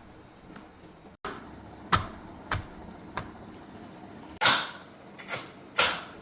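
A series of about six sharp knocks at uneven intervals, the loudest about four and a half seconds in with a short ring after it.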